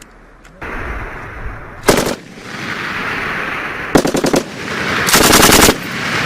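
M240B 7.62 mm machine gun firing three bursts of automatic fire: a short one about two seconds in, another about four seconds in, and a longer, louder one right after. A hazy echo lingers between the bursts.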